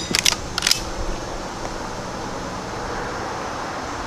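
Lever of a Henry Frontier .22 lever-action rifle being worked between shots: a few sharp metallic clicks in the first second as the action is cycled, then only a steady background hiss.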